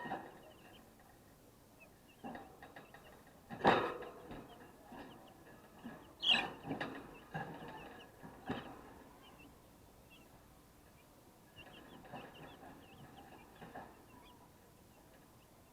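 Twelve-day-old broiler chicks peeping in short high chirps, with a few sharp knocks among them, the loudest about four seconds in.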